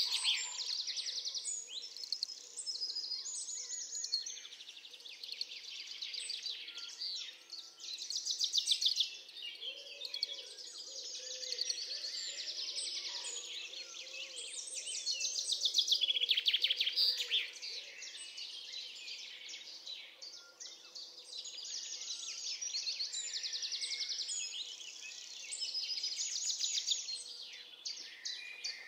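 Birdsong: several birds chirping and trilling over one another in a continuous chorus, with fast repeated trills.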